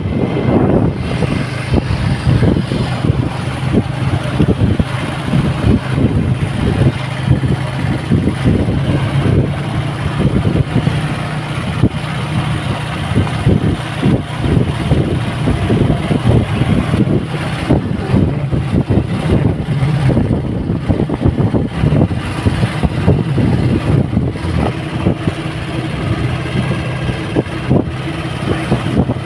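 Motorcycle engine running steadily while riding along a road, heard with wind buffeting the microphone.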